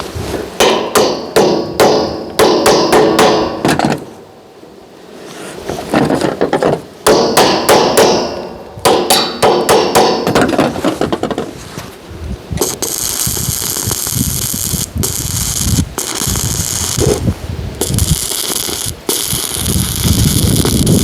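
Rapid hammer blows on metal, ringing, in two runs of a few seconds each. Then, from about twelve seconds in, a steady crackling hiss typical of an electric arc welder, broken by a few short stops.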